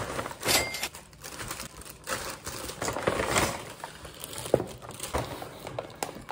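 Brown paper takeaway bag rustling and crinkling as it is handled and unpacked, with irregular crackles and a few small knocks.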